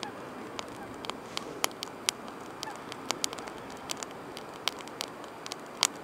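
Small sticks and twigs crackling and popping as they burn in a stainless steel secondary-combustion (wood-gas) camp stove: irregular sharp pops, several a second at times, over a steady rushing noise.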